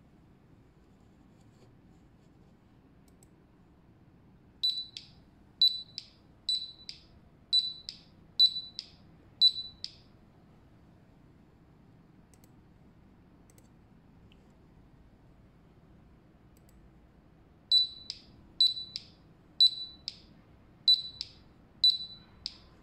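Buzzer of a Bluetooth Low Energy alarm tag (Orb 50) sounding its alarm: short high-pitched beeps in pairs, about one pair a second. One run of about six pairs, a pause of about eight seconds, then another run of about six.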